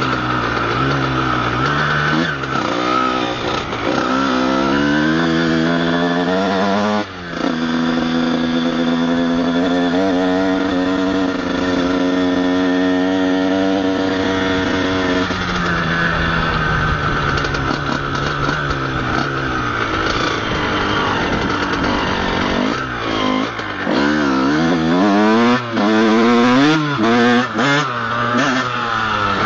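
Honda CR125 two-stroke single-cylinder motocross engine revving up and down under way, ridden gently on a burnt clutch. The revs drop sharply about seven seconds in, hold steady for several seconds, then rise and fall in quick blips near the end.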